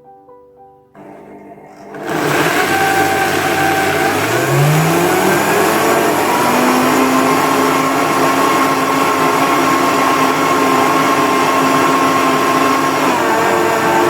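Optimum 9200A high-speed blender switching on about two seconds in and grinding oats into flour. Its motor pitch rises over a couple of seconds, then runs steady and loud.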